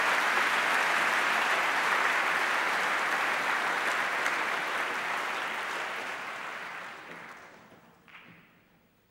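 Large audience applauding, steady and loud, then dying away over the last few seconds.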